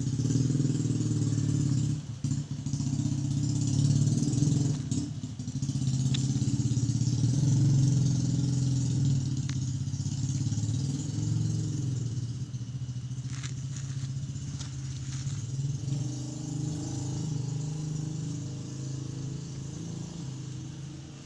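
A motor engine running steadily, a low even hum that slowly grows fainter over the second half.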